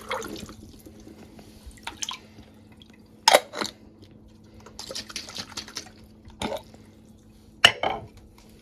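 Water dripping and splashing in a glass jar as it is rinsed again to clear soap residue, with a few sharp knocks of glass spread through, two of them the loudest sounds.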